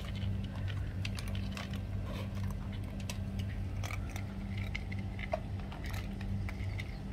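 A cat crunching dry food: irregular small clicks and crunches over a steady low hum.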